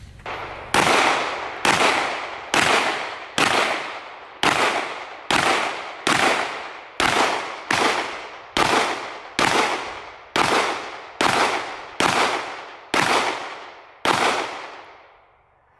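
CZ Shadow 2 Orange 9mm pistol fired about sixteen times at a steady pace, a little under a second between shots, each sharp report ringing out and fading before the next.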